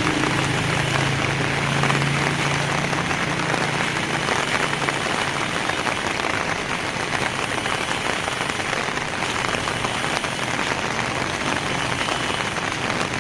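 Heavy rain pouring steadily, a dense even hiss of drops. A low hum, like a passing engine, fades away in the first few seconds.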